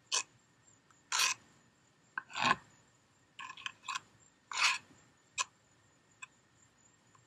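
A small flat trowel scraping and spreading wet tile mortar over a concrete stepping stone, in short separate strokes, about half a dozen, with pauses between them.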